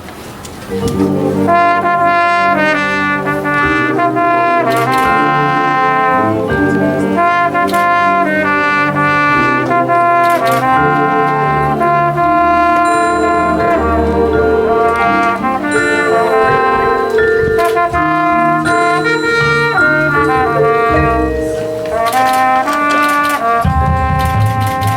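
Marching band brass (trumpets and trombones) playing loud held and moving chords over drum hits, starting about a second in.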